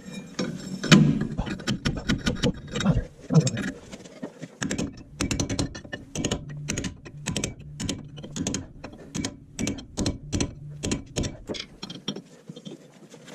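Hand tools working metal on a truck's front axle tube: a rapid, irregular run of sharp metallic clicks and knocks as the old outer axle tube dust shield is worked off, thickest in the middle and thinning out near the end.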